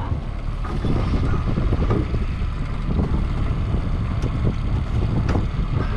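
Wind buffeting the microphone on a moving boat, over a steady low rumble from the boat and water, with a couple of faint clicks late on.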